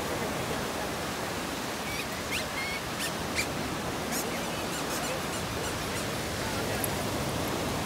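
Ocean surf washing and breaking on a beach, a steady rushing hiss. A few faint, brief high-pitched sounds come through it between about two and four seconds in.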